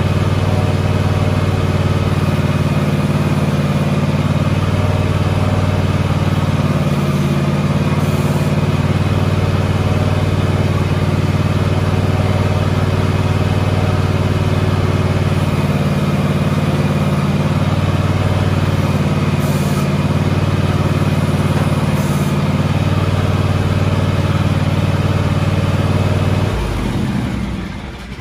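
John Deere X580 lawn tractor engine running steadily, then switched off about 26 seconds in, its pitch dropping as it winds down to a stop.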